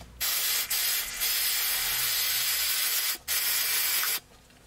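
Aerosol can of brake cleaner spraying onto an oil filter housing cap to wash off old oil: a long hissing spray of about three seconds, a short break, then a shorter spray that stops about half a second before the end.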